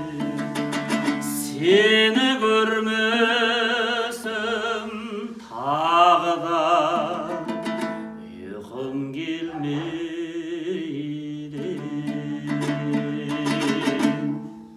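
A man sings long, wavering notes to a strummed dombra, the Kazakh two-string lute. He sings in two phrases in the first half, and the strumming carries on underneath.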